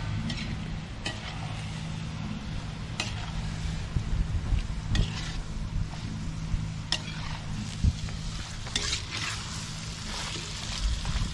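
Duck meat frying in masala in a black kadai over a wood fire, sizzling steadily while a perforated metal spatula stirs it, with a sharp scrape or clink against the pan every second or so.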